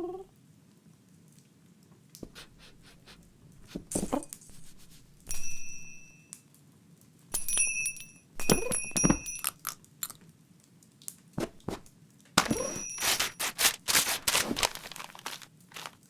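Cartoon sound effects: scattered scratching, rustling and crunching noises, with a small bell ringing briefly a few times.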